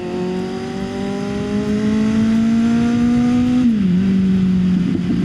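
Kawasaki Z900's inline-four engine pulling under acceleration, its pitch climbing steadily, then dropping sharply at an upshift about three and a half seconds in and holding steady after it.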